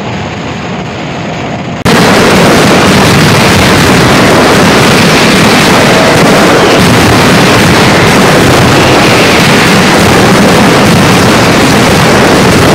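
Mascletà firecrackers going off in a dense barrage, the bangs packed so tightly they merge into one continuous, extremely loud rattle. Quieter at first; about two seconds in it jumps abruptly to full loudness and holds there.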